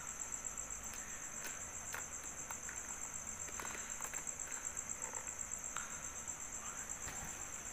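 A cricket chirping in a steady, rapidly pulsing high trill, with a few faint knocks of a plastic device being handled.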